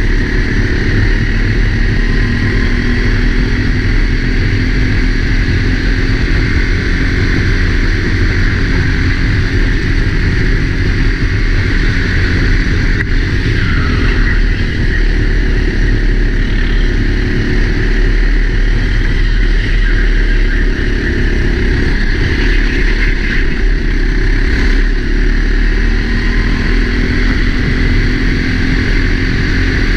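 Four-stroke Sodi kart engine running hard under race load, heard from a helmet-mounted camera. Its pitch rises and falls a little with no let-up.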